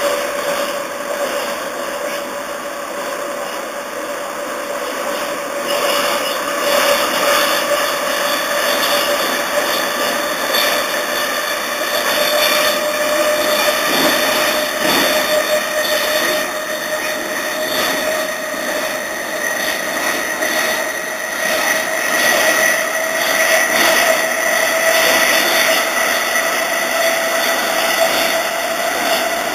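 Traction motors of an MTR East Rail Line Metro-Cammell (MLR) electric multiple unit running under power, their whine rising slowly in pitch and getting a little louder as the train gains speed, over steady wheel and rail noise.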